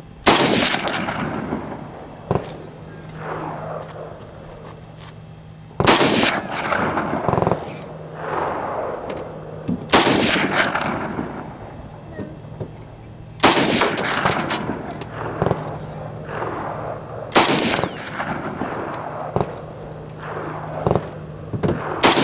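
MG42 machine gun firing short bursts about every four seconds, each dying away in a long echo off the surrounding hills, with a few single cracks between them. A deeper blast starts right at the end as the tannerite target detonates.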